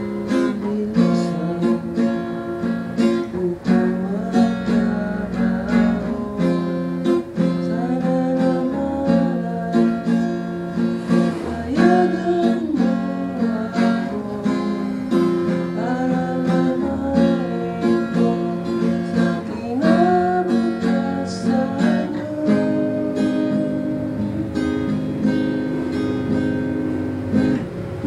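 A man singing to his own acoustic guitar, strummed in a steady rhythm.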